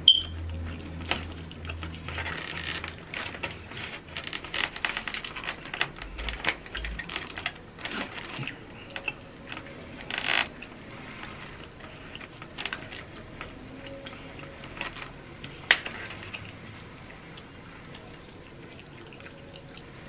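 Plastic fork clicking and scraping as it cuts through enchiladas in a foil-lined foam takeout tray, many small irregular clicks with a sharper one right at the start.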